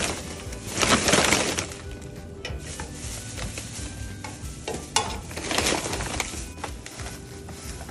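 Plastic trash bags rustling and crinkling as they are handled, loudest about a second in and again around five to six seconds, with a sharp click near five seconds.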